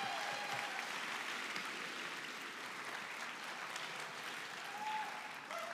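Studio audience applauding, dying down near the end.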